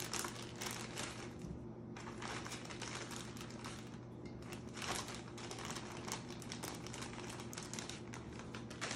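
Thin plastic zip-top bag crinkling as it is opened and emptied, with a run of small clicks and taps as cherry tomatoes are tipped onto a wooden cutting board. A low steady hum runs underneath.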